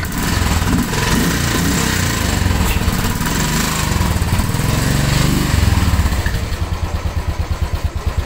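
Motorcycle engine running just after starting, uneven at first, then settling into a steady, pulsing idle a little past halfway.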